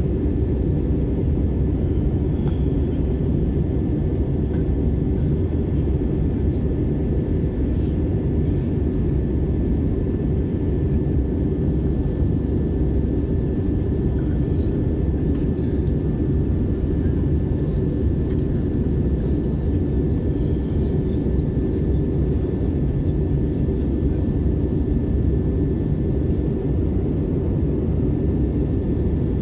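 Steady low rumble of an Airbus airliner in flight, heard inside the cabin at a window seat over the wing: engine and airflow noise with a faint steady whine on top.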